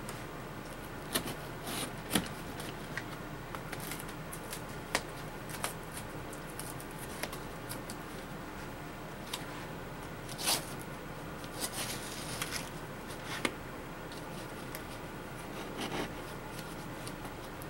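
A cardboard shipping box is handled while its packing tape is cut with a small knife: scattered scrapes, rustles and sharp clicks, the strongest about ten seconds in. A faint steady hum runs underneath.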